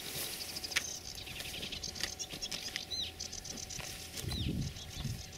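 Footsteps swishing through tall grass as a person walks, with two short high bird calls about three and four seconds in.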